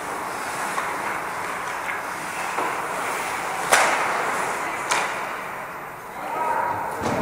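Ice hockey skates scraping and carving on rink ice, with two sharp knocks about a second apart in the middle, the first the loudest.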